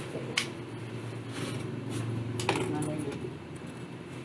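Two sharp clicks of small parts and screws being handled while an MSI GF75 Thin laptop is taken apart, over a steady low hum.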